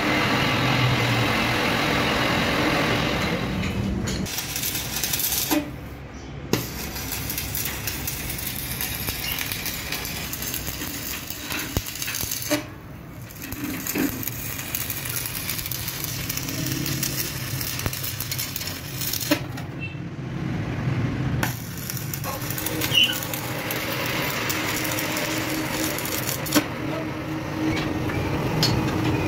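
Metal workshop noise: a steady mechanical noise with scattered sharp metallic clinks and knocks, changing abruptly several times.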